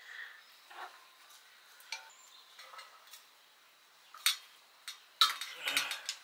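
Kitchen pot and utensils clinking and scraping: scattered light clicks, then a louder run of clatters near the end.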